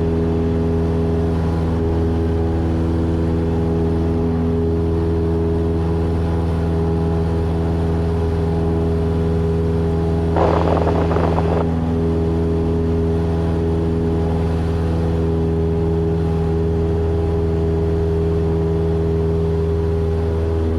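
Cessna 172's piston engine and propeller heard inside the cockpit, a steady drone at climb power, with a short burst of noise about ten seconds in.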